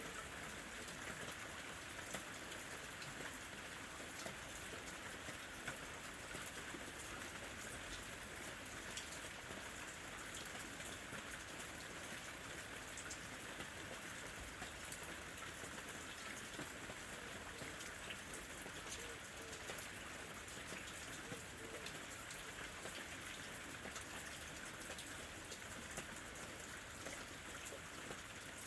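Light rain falling steadily, a soft even patter with many small individual drops ticking on a surface.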